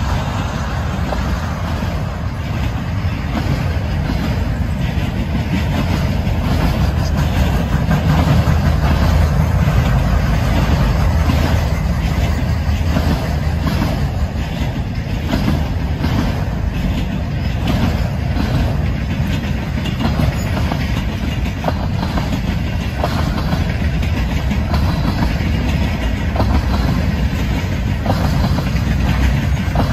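Freight cars of a manifest train, tank cars and autoracks, rolling past close by: a steady rumble of steel wheels on rail, with repeated clicks as the wheels pass over rail joints.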